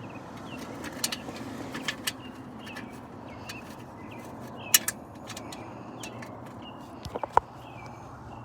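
Irregular sharp clicks and taps of screws and a plastic door-sill trim piece being handled and fitted, the loudest about halfway through and again near the end. Faint bird chirps sound in the background.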